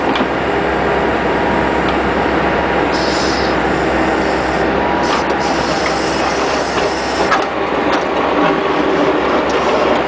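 Bobcat skid-steer loader's diesel engine running steadily while its hydraulics work a Bobcat 709 backhoe attachment, with short harsh bursts about three and five seconds in.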